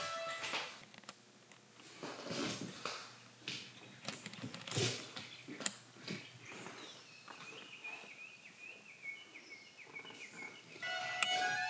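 Scattered knocks and footstep-like taps, then a bird giving a quick run of short chirps for about three seconds. A violin starts playing again near the end.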